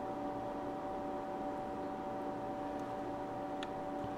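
Steady electrical hum of several even tones over a light hiss, with one faint tick about three and a half seconds in.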